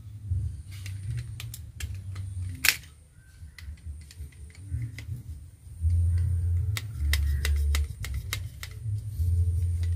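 Utility knife cutting and prying a plastic pourer fitting off the neck of a glass bottle: irregular sharp clicks and cracks of the plastic, the loudest a little under three seconds in, over a low rumble.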